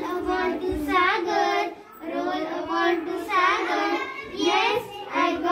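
Children's voices singing a rhyme about bouncing a ball, in a sing-song melody with short phrases and brief breaths between them.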